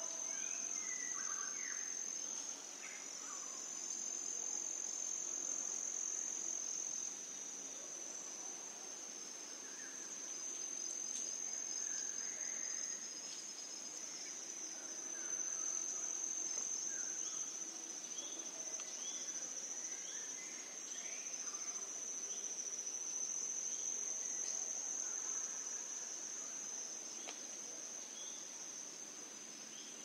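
A steady, high-pitched insect chorus trilling without a break, with faint, scattered bird chirps underneath.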